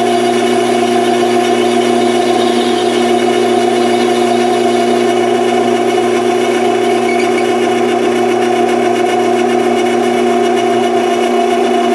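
Grizzly G0602 metal lathe running steadily, its motor and gear train giving a constant hum made of several even tones.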